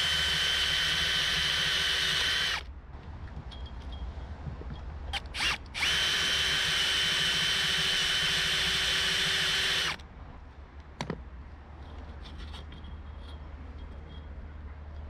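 Cordless drill drilling out the rivets in a metal spinnaker pole end: a steady whine at constant speed that stops about two and a half seconds in, a couple of short blips, then a second run of about four seconds. After it stops, quiet clicks of handling and one sharp knock.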